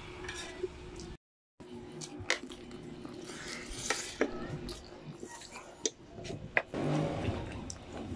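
Close-up eating sounds of chicken feet in sauce being chewed and sucked: wet smacking and sharp clicks of the mouth, with finger-sucking and a louder slurping stretch near the end. The sound cuts out completely for about half a second a little after the start.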